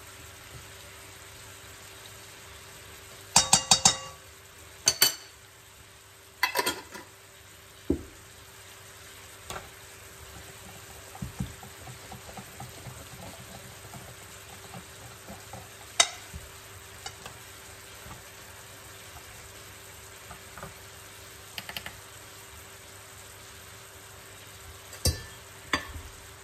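Wire whisk beating cake batter in a stainless-steel mixing bowl: soft stirring and scraping with sharp metallic clinks, loudest a few seconds in and again near the end, over a steady low hiss.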